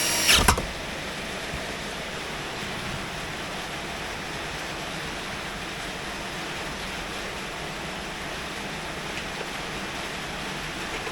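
Steady hiss of heavy rain. Right at the start a power drill's whine stops with a couple of sharp clicks.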